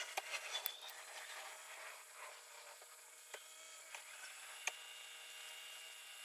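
Faint light clicks and rubbing of hands working on horn wiring, over a steady faint hiss.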